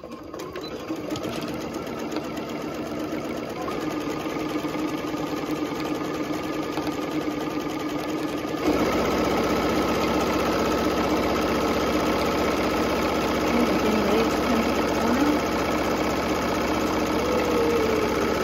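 Electric sewing machine running steadily as it stitches a seam through fabric and liner, getting gradually louder, then speeding up and running louder from about nine seconds in.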